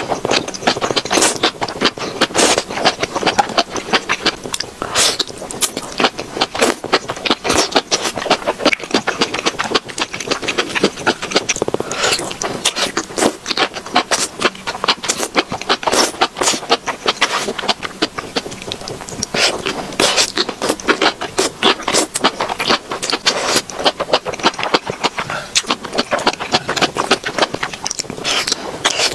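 Close-miked slurping and chewing of enoki mushrooms in chilli oil: a dense, continuous run of wet smacks and clicks.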